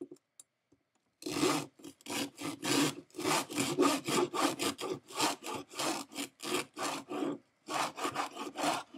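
Stainless steel serrated knife sawing back and forth through a thick rope, a rasping stroke about two to three times a second, starting about a second in with a short break near the end. The serrated edge rips and shreds the rope fibres rather than cutting cleanly.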